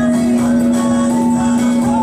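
Music with a singing voice over a steady hum.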